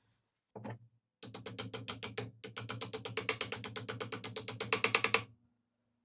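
A ratchet clicking fast and evenly, about ten clicks a second, with a brief pause about two seconds in, as a bolt is run in during reassembly of the jack.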